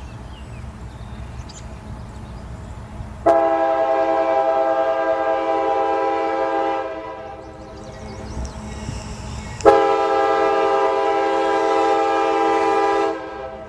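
Horn of an approaching freight locomotive, sounding a chord in two long blasts for the grade crossing, each about three and a half seconds long, over a low rumble.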